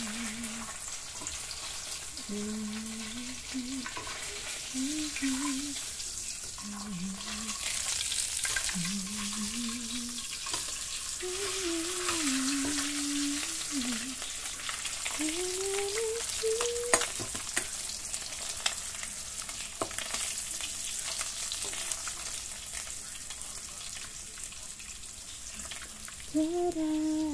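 Fish frying in hot oil in a wok: a steady sizzle, with clicks and scrapes of a metal spatula stirring in the pan. A woman's voice hums a tune in snatches through the first half or so.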